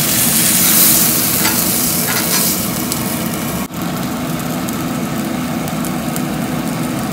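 Whole rockfish sizzling in oil on a hot cast-iron ridged grill pan, with scattered crackles. The sizzle is brightest in the first couple of seconds, drops out for a moment just under four seconds in, then goes on steadily.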